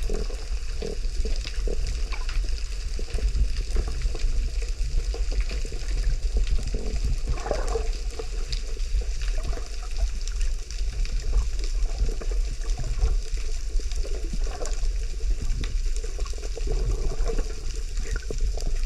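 Ocean water churning and sloshing, with a steady low rumble and constant fine crackling; a louder swirl about halfway through.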